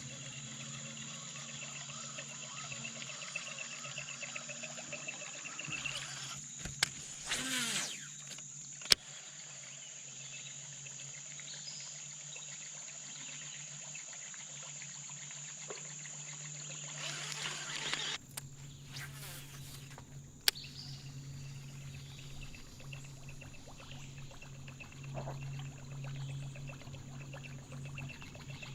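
Insects buzzing steadily at a high pitch, with a steady low hum beneath and a few sharp clicks.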